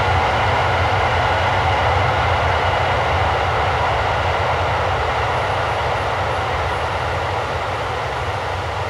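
Steady rumbling, hissing soundscape from the dance's accompaniment track, with a deep low rumble under a noisy wash, easing slightly in level near the end.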